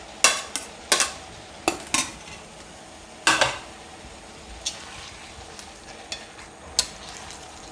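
A spoon stirring and scraping against a pan of frying chicken and vegetables, over a faint steady sizzle. The clatters come about every half second at first, then grow sparser and fainter after the middle.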